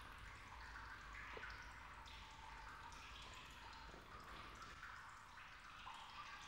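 Faint, sparse water dripping over a low steady hum, close to silence.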